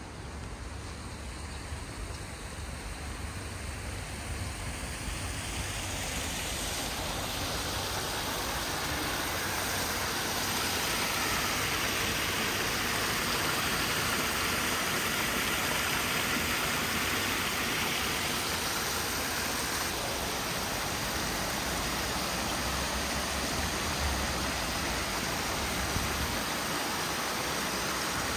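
Falling water of a waterfall, a steady rush that grows louder about six seconds in and then runs on evenly.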